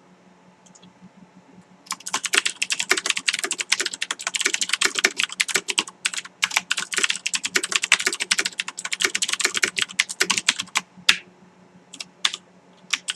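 Typing on a mechanical keyboard with Cherry MX Blue switches: loud, very clicky keystrokes in two quick bursts, each a typed sentence, with the keys bottoming out, then a few single key presses near the end.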